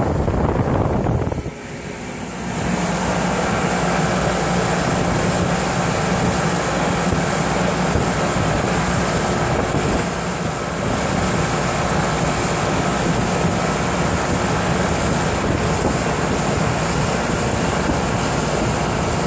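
Boat's outboard motor running steadily under way, with wind buffeting the microphone. The sound drops briefly about a second and a half in, then a steady low engine tone comes back in.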